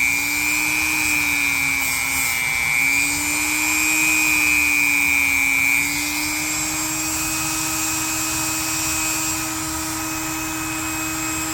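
A small electric rotary tool running with a polishing pad, buffing the back spring of a lockback pocketknife. Its whine wavers in pitch for the first six seconds or so, then holds steady and a little quieter.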